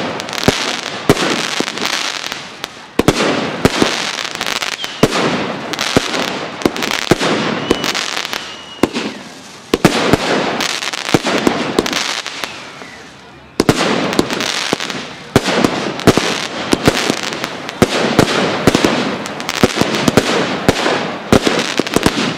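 Aerial fireworks display: fireworks shells launching and bursting in quick succession, with dense crackling between the bangs. The barrage comes in volleys with short lulls about 3, 9.5 and 13.5 seconds in.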